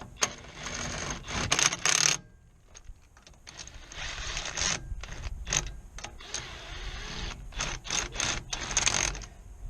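Hand tool work on wheel nuts: a socket ratchet clicking in two long runs, with sharp metal clinks mixed in.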